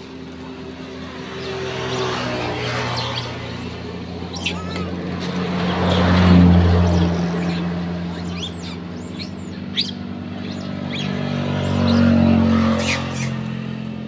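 Motor vehicles passing on the road, one about six seconds in and another about twelve seconds in, each engine rising and then fading. Short high chirps sound over them.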